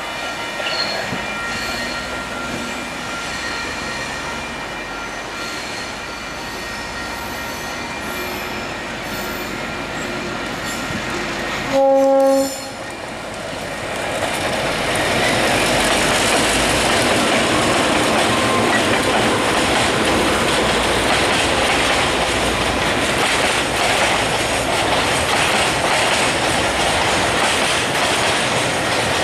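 Heavy freight train at a road crossing: a locomotive horn sounds one short blast about twelve seconds in, then the loaded train passes close by, its wagons rumbling and clattering loudly over the rails.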